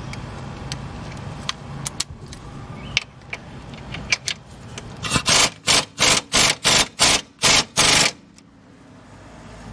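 Impact wrench on a socket and extension hammering at a stuck rear lower control arm bolt in about eight short bursts over three seconds, after a few metallic clicks as the socket is fitted. The bolt does not break loose.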